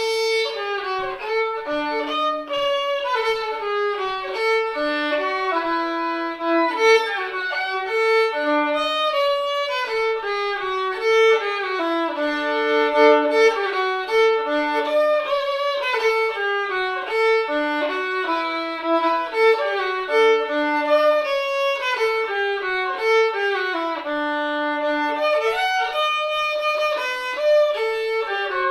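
Solo fiddle playing a fiddle tune: a steady stream of quick, clear bowed notes in a running melody.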